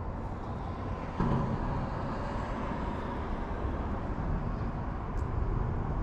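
Steady low rumbling noise, stepping up a little in level about a second in.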